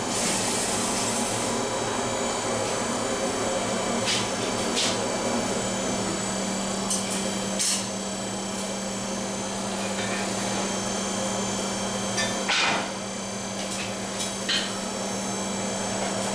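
A handful of separate hammer blows on hot steel at the anvil while a knife blade is forged, spaced irregularly, the loudest about twelve and a half seconds in, over a steady forge drone.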